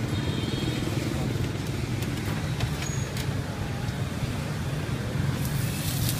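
Street traffic with motor engines running, a steady low rumble. Near the end a frying hiss from a large flat wok grows louder.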